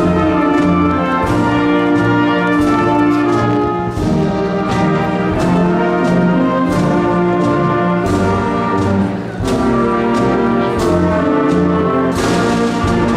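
Orchestral processional music led by brass, playing held chords that change every second or so over a regular beat.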